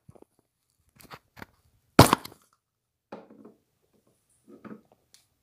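Handling noise from a phone and small objects being picked up: scattered short clicks and knocks, with one sharp, loud knock about two seconds in, and two softer, longer rustles later on.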